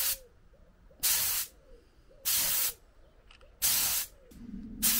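Compressed-air paint spray gun with a cup underneath, fired in short bursts of hissing spray: four bursts of about half a second each, roughly one every 1.3 seconds. A low steady hum starts up near the end.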